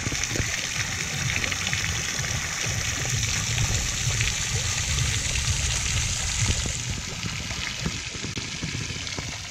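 Fountain water spraying and splashing down into its basin: a steady rushing hiss, with a low rumble underneath.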